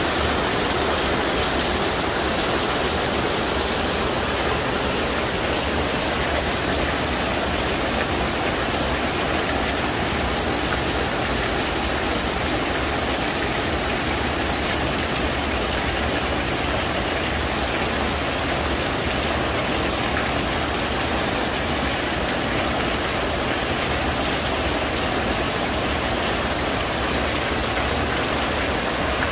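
Heavy rain falling steadily on a paved courtyard, with water pouring off a roof edge in streams; an even, unbroken rush.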